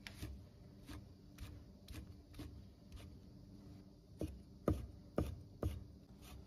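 Chinese cleaver cutting cooked sausage on a round wooden chopping block: faint knocks about two a second as the blade goes through and meets the wood. About four seconds in, five firmer chops follow as the strips are diced into coarse bits.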